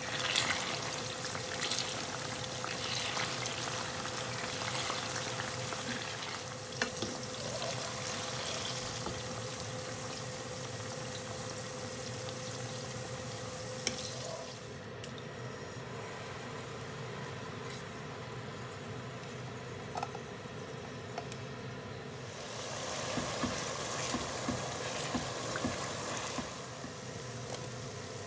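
Diced tofu frying in hot oil in a frying pan: a dense, steady sizzle and crackle, with the occasional scrape of a spatula turning the cubes. The sizzle eases for several seconds past the middle and picks up again near the end.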